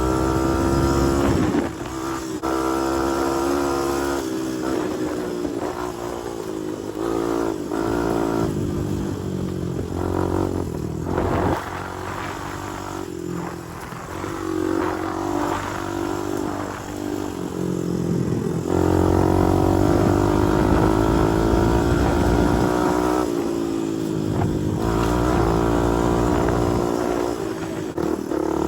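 Honda TRX250X four-wheeler's single-cylinder four-stroke engine running as it is ridden, its revs rising and falling with the throttle. It is loudest and highest for a stretch through the second half.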